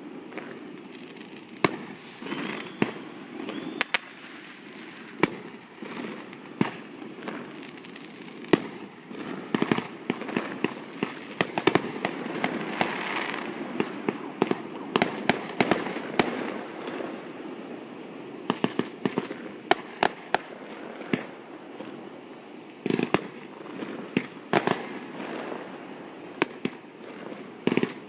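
Aerial fireworks going off in a steady stream of sharp bangs and crackles, bunched most thickly near the middle and again about three-quarters of the way through. A steady high-pitched tone runs underneath.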